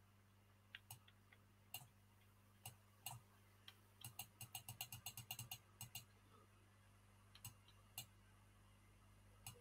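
Faint clicking of computer keys at a desk: scattered single clicks, with a quick run of about a dozen in a row around four to six seconds in.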